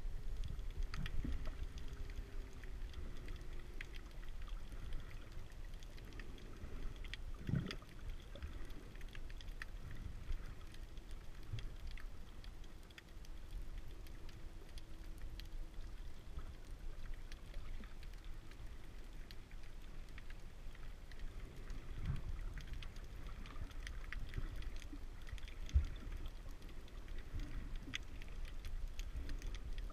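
Underwater ambience heard through a submerged camera: a steady low rumble with scattered faint clicks and crackles. A faint steady hum comes and goes, near the start and again about halfway, and there are dull thumps about 7 seconds in and near 26 seconds.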